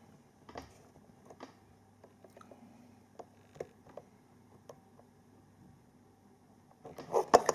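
Faint, scattered clicks and taps of a Philips vacuum cleaner's plastic parts being handled during disassembly, with a louder burst of clatter near the end.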